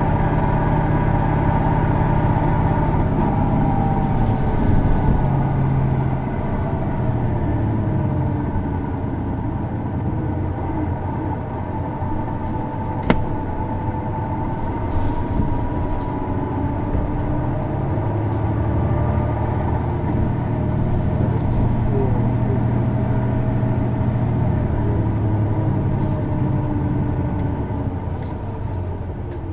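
Isuzu Erga city bus's inline-six diesel engine heard from inside the bus while driving, its pitch rising and falling with the revs. It carries the peculiar engine noise typical of this PKG-LV234 bus. There is one sharp click about 13 seconds in, and the sound eases off near the end.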